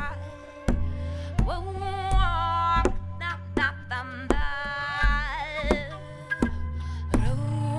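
Music with a sung melody of held notes over a steady beat, one hit about every 0.7 seconds, and a low sustained drone.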